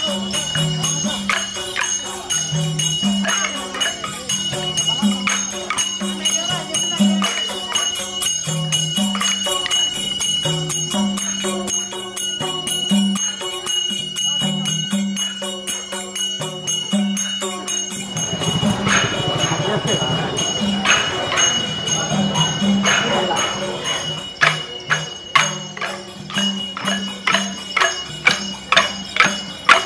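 Live Newar processional music: a large double-headed barrel drum beating a steady rhythm, with small hand cymbals ringing and jingling bells. Near the end, sharp knocks about twice a second from the dancers' wooden sticks striking together.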